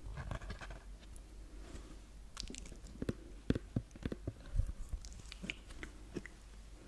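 Close-miked handling of a cardboard board book: scattered soft taps and clicks of fingers on the stiff board pages as the book is opened and held up.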